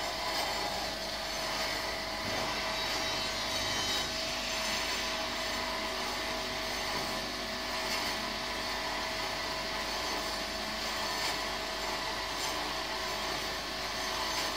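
Pilous ARG 200 manual pivot band saw running, its blade cutting through metal stock as the saw bow is lowered: a steady sawing noise with an even tone running through it.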